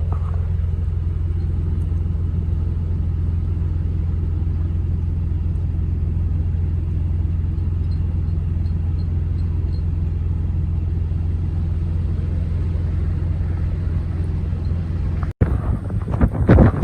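Steady low rumble of a vehicle running. After a sudden cut near the end, strong blizzard wind buffets the microphone in gusts.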